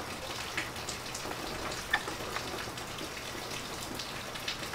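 Steady rain falling, a constant hiss with scattered sharper drop ticks, one louder tick about two seconds in.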